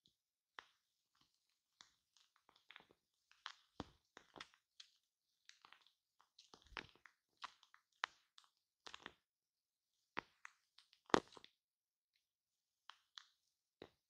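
Shaving cream foam on a microphone giving quiet, irregular crackles and pops, with the loudest about eleven seconds in.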